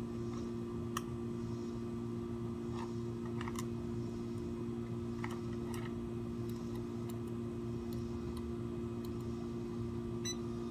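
Scattered light clicks and taps over a steady low hum: the switches and plastic parts of a small RC car and its remote being handled while they are switched on.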